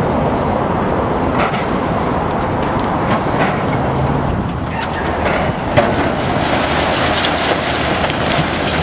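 High-reach demolition excavator's diesel engine running under load while its hydraulic crusher jaws bite through a reinforced-concrete floor slab, with irregular cracks and clanks of breaking concrete and rebar and falling rubble. A sharp crack stands out about six seconds in.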